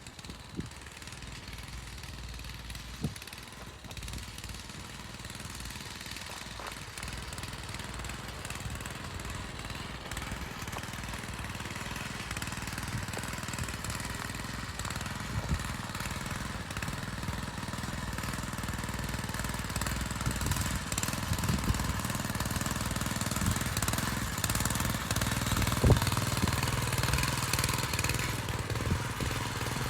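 Small engine of a power tiller (walking tractor) running steadily and gradually growing louder, with a couple of sharp knocks, one near the start and one near the end.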